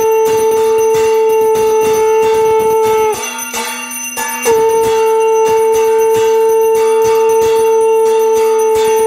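A conch shell (shankha) blown in long, steady notes over a hand bell ringing rapidly. The first note dips slightly in pitch as it ends about three seconds in, and a second long note starts about a second later.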